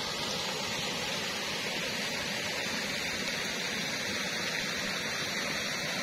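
Steady rush of water flowing from a small concrete weir, an even hiss with no breaks.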